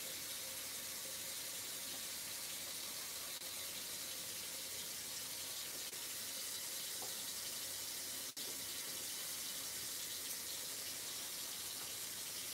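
Kitchen tap running steadily into the sink, a constant hiss of water.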